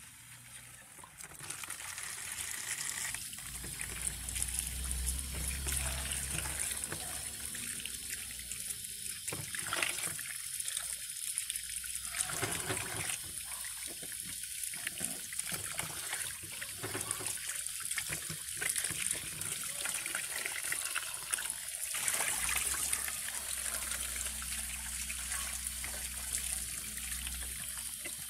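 Tap water running steadily into a plastic basin of vegetables, splashing as hands rinse them.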